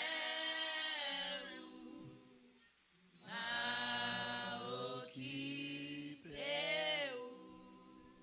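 Unaccompanied singing in long held notes, in two phrases with a short break about three seconds in.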